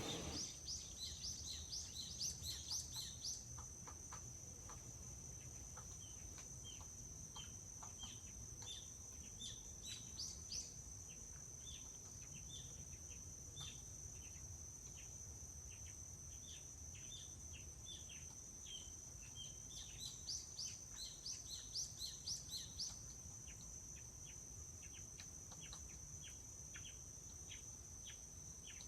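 Forest ambience: small birds chirping in short repeated notes, with quick runs of rising chirps near the start and again about twenty seconds in, over a steady high-pitched insect drone. A soft low rumble sits underneath.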